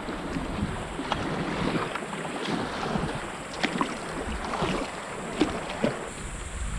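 River water splashing and sloshing around kayaks, with a few short sharp splashes or knocks scattered through it, and wind buffeting the microphone.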